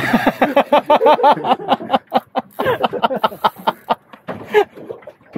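A man talking quickly in Korean, loud and close.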